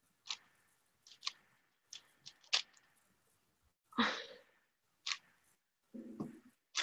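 Scattered sharp clicks of a speed cube being turned and handled close to the microphone, with a louder rustling clatter about four seconds in and a shorter lower one near the end.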